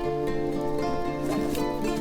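Background music, a light plucked-string tune with a ukulele-like sound.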